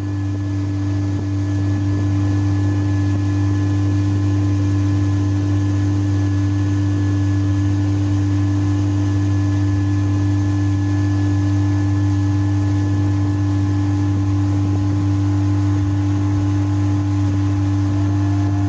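Boat engine running steadily at cruising speed, heard from inside the covered passenger boat as a loud, even drone that holds one pitch throughout.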